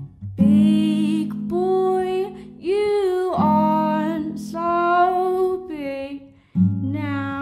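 Song with sustained acoustic guitar chords under a wordless sung vocal line that slides between held notes. The music drops out briefly near the end, then the guitar comes back in.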